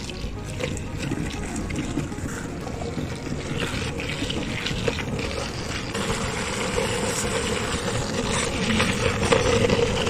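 Longboard wheels rolling over asphalt, a steady rough rolling noise that grows louder toward the end.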